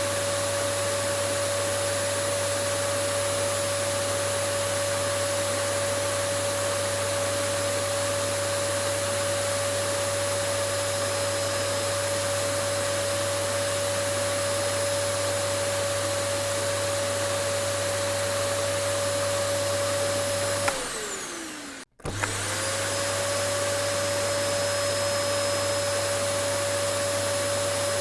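Vacuum cleaner motor running steadily with a high whine over a rushing airflow noise. About three-quarters of the way through, it winds down with a falling pitch and cuts out for a moment, then starts up again and whines back up to full speed.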